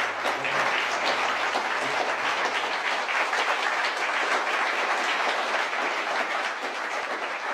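Theatre audience applauding at a curtain call: many hands clapping at once in a steady, dense applause.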